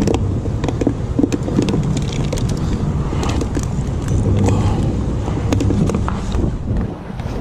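A steady low rumble, with scattered light clicks and taps over it.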